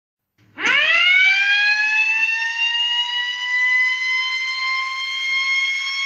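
Small electric motor siren switched on: its rotor spins up so the wail sweeps quickly upward just after it starts, then creeps higher and settles into a steady high wail.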